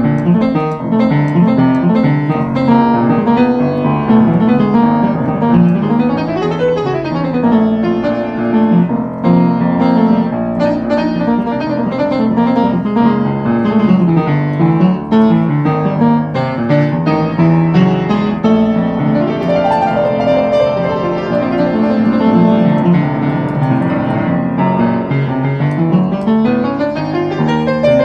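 Piano music played continuously, with fast runs of notes sweeping up and down.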